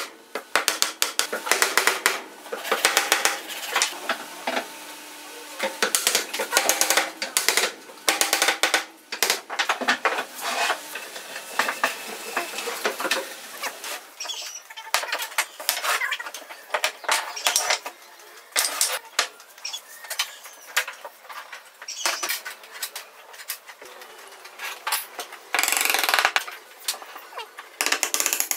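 Wooden chair parts being handled and set down on a workbench: a string of sharp taps, clicks and knocks, with a short louder burst of noise near the end.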